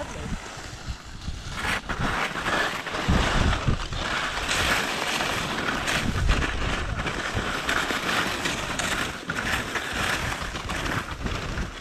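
Skis scraping and sliding across snow, a grainy hiss that starts about two seconds in, with wind rumbling on the helmet camera's microphone.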